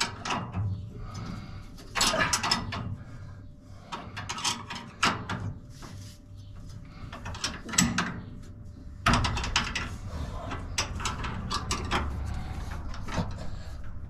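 Irregular metal knocks, clicks and scrapes of hands and tools working on a combine harvester's grain sieves and frame. A low rumble joins in about nine seconds in.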